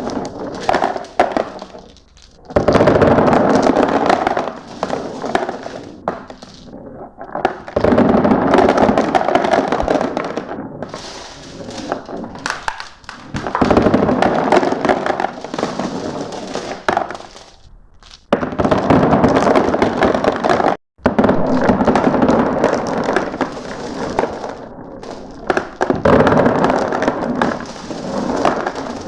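Glass marbles clattering and rolling down a marble run in repeated waves. Every few seconds a loud rush of many marbles sets in and then tails off.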